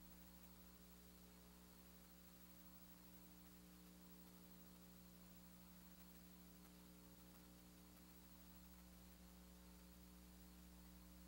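Near silence: a faint, steady hum under low hiss.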